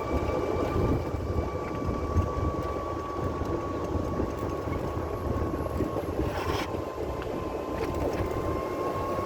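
Golf cart driving along: a steady high whine over a rumble of tyres and wind on the microphone, with a brief rattle about six and a half seconds in.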